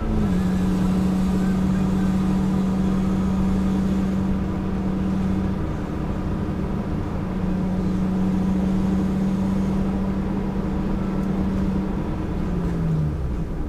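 A car's engine running at a steady cruise, heard from inside the cabin over tyre and road noise; its drone holds one pitch, fades briefly about six seconds in, and falls in pitch near the end.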